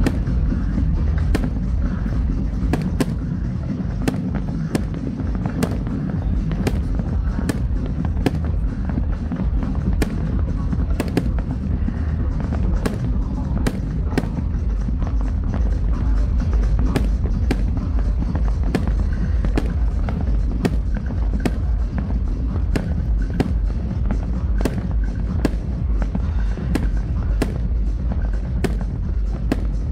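Fireworks fired from a rooftop: a steady run of sharp bangs and crackles, roughly one or two a second, over loud music with a heavy bass.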